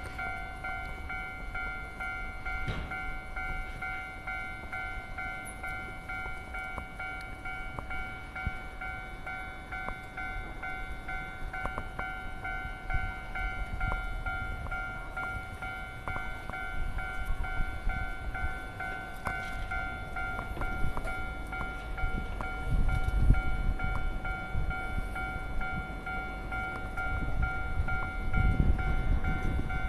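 Japanese level crossing alarm ringing steadily while a Keio 1000 series electric train approaches. The rumble of the train on the rails swells about two-thirds of the way through and again near the end.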